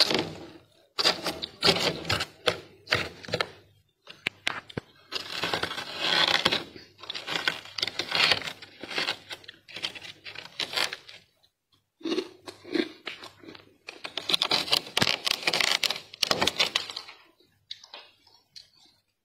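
Thick freezer frost being scraped and crushed by hand, a crisp crunching and crackling that comes in bursts with short pauses between them.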